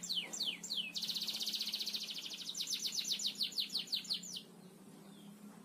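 Domestic canary singing: a series of falling whistled notes, then a fast buzzing trill about a second in, then quicker falling notes that stop about four and a half seconds in. A faint steady low hum runs beneath.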